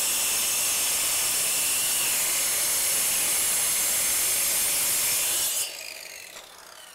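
Black & Decker sidewinder circular saw with a Bosch segmented diamond blade cutting a shallow, water-fed pass into a concrete floor: a steady, really loud grinding. About five and a half seconds in the cut stops and the saw is switched off, its blade winding down with a falling whine.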